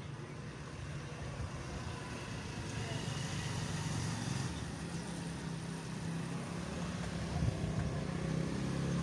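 An engine running steadily with a low hum, slowly growing louder, and a short knock about seven and a half seconds in.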